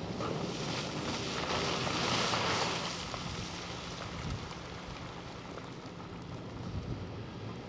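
Monighan 9W walking dragline working: a steady machinery drone as the emptied bucket is hoisted and the machine swings, with a louder hiss swelling about two seconds in.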